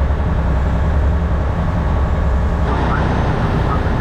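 Fishing boat under way at speed: its engine running steadily with a low hum, over the rush of water and wind along the hull.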